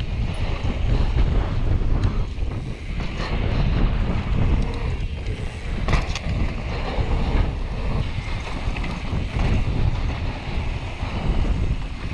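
Wind buffeting the microphone of a helmet-mounted GoPro as a mountain bike rolls fast down a dirt trail, a steady low rumble with the tyres running over the ground. A few sharp knocks from the bike, the clearest about six seconds in.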